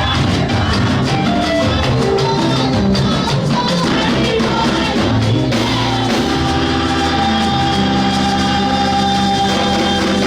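Loud music with a busy percussive beat. About five and a half seconds in it changes to long held chords.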